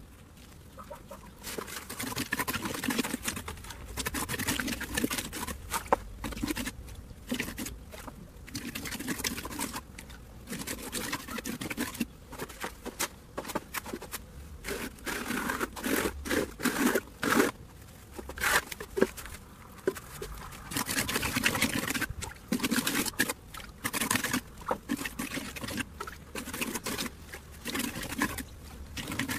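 Trowel scraping and patting wet concrete in a plastic garden-path mould, in irregular strokes, as the surface is smoothed and the stone joints are drawn in.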